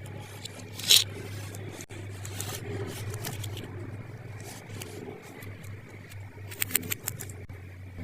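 Small plastic toy pieces and their packaging being handled: rustling and light clicks, with a sharper crinkle about a second in and a quick run of clicks near the end, over a steady low hum.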